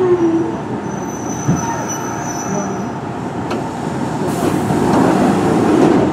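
Kintetsu 1420-series electric train with Mitsubishi GTO-VVVF inverter control, slowing for a station stop. The inverter's tone falls in pitch at the start, and a high squeal runs from about one to two and a half seconds in, over steady running noise.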